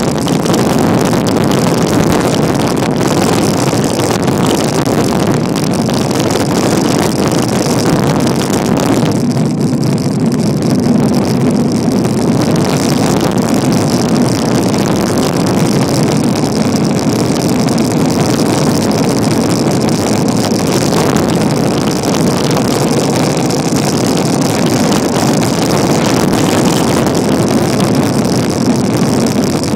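Loud, steady wind rush buffeting the microphone of a camera riding on a bicycle at descending speed. The higher hiss thins for a couple of seconds about ten seconds in.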